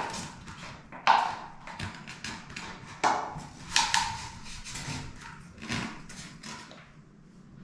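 Hands handling a foam boat fitted with a plastic cup and a drinking straw, working the straw through a tunnel in the foam: irregular scraping, rustling and light knocks of foam and plastic.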